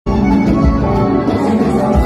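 Live band playing loud amplified music, with guitar over a steady low bass beat.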